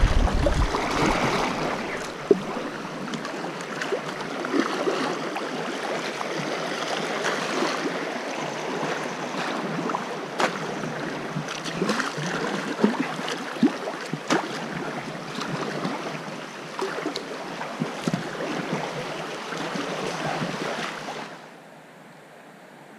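River water rushing through a small riffle around an inflatable kayak, with frequent small splashes against the hull and paddle. The noise drops off sharply near the end to a quiet hiss as the water turns calm.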